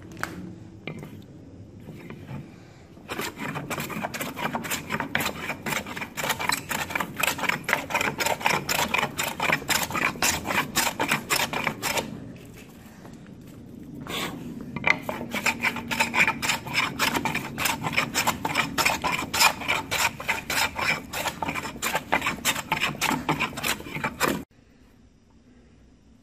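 Quick, rhythmic strokes of a hand tool scraping across the flattened oak face of a wooden pump trunk, about four strokes a second. It comes in two long bouts with a short pause between and stops suddenly near the end.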